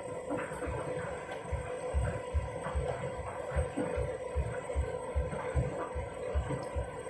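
Candy Grand'O Vita washing machine running an empty rinse cycle: a steady hum with a regular low thud about two and a half times a second, starting about a second and a half in, as the drum turns.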